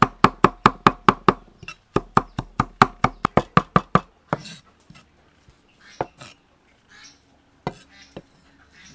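Large knife chopping red chillies on a wooden chopping board: two runs of quick, even chops about four a second, then a scrape and a few lighter knocks as the chopped chilli is gathered together with the blade.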